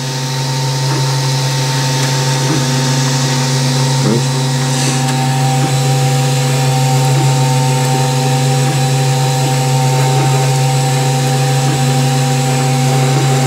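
Wanhao Duplicator 4 3D printer running mid-print: a steady machine hum made of several constant tones, with faint brief changes now and then.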